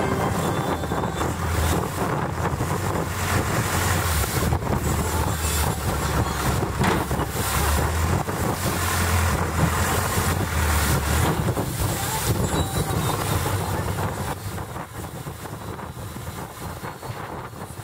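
Long-tail boat engine running under way, with wind buffeting the microphone; it grows quieter over the last few seconds.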